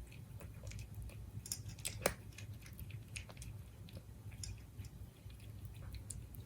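A Siberian cat chewing its food, with irregular small clicks from its mouth and one louder click about two seconds in.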